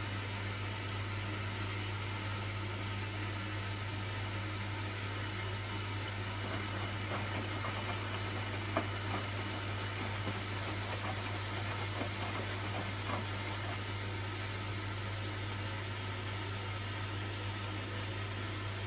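Hoover washing machine running a Refresh cycle: a steady low hum under an even hiss, with a few faint knocks from the drum, the clearest about nine seconds in.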